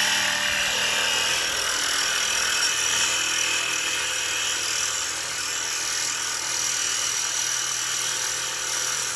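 Cordless impact wrench running steadily on a bolt under a car.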